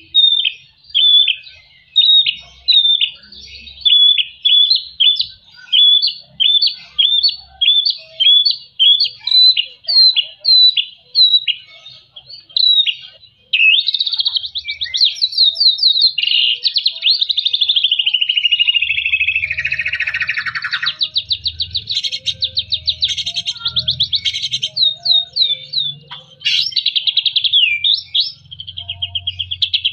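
Caged white-rumped shama singing. First comes a run of short, clear, down-slurred whistled notes, about two a second. About halfway through this gives way to a fast, continuous rattling trill that sags in pitch, then breaks into bursts of rapid notes.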